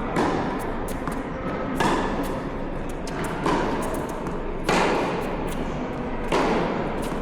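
Tennis ball struck back and forth by rackets in a rally: five firm hits, roughly one every one and a half seconds.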